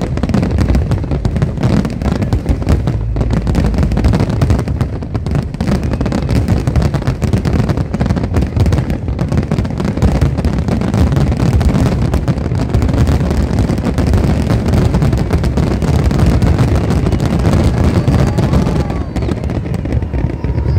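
Fireworks display going off without a break: a dense run of rapid bangs and crackles over a low rumble.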